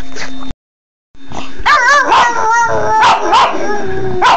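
A pug howling in long, wavering notes that bend up and down in pitch, broken by short sharp yips. The sound cuts out completely for about half a second near the start, and the howling begins about a second and a half in.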